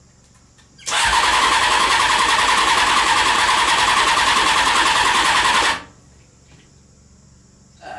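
Honda CBR600 inline-four engine cranked over on its electric starter for about five seconds, an even rhythmic whirr that stops abruptly without the engine catching. The owner wonders whether it is getting fuel.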